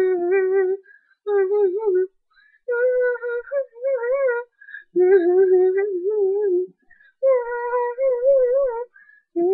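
A child singing wordless, wobbling notes in five short phrases of one to two seconds each, with brief pauses between them; the pitch steps up for the middle phrases.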